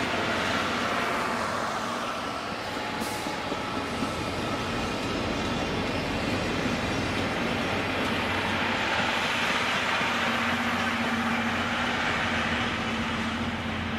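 Blue passenger coaches hauled by an ED75 electric locomotive run past: a steady rumble and rattle of wheels on the rails. A high whine falls in pitch and fades over the first two seconds.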